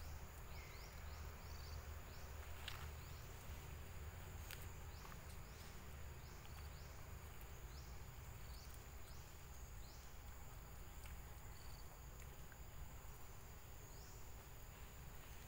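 Faint forest ambience: a steady high-pitched insect drone, with short, high falling chirps about once a second and a low rumble underneath.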